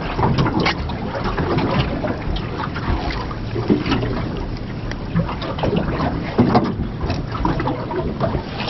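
Wind and water slapping against the hull of a small anchored fishing boat, a steady rush broken by many small knocks and splashes.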